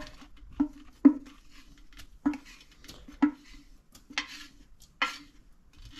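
A metal stockpot held upside down and knocked as it is emptied into a smaller pot: about seven sharp, unevenly spaced clanks, each with a short metallic ring. The last two, near the end, are longer scraping clatters.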